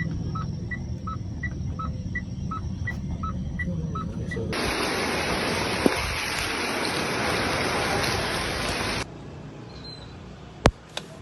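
Rushing noise of a windstorm. Through the first four seconds an electronic alarm beeps in alternating high and low tones, about three beeps a second. Then a louder, brighter rush takes over, and about nine seconds in it drops to a quieter hiss with two sharp clicks near the end.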